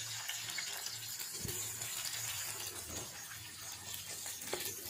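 Sliced onions frying in hot oil in an aluminium pot: a steady sizzle, with a faint low hum underneath. A wooden spoon starts stirring the onions near the end.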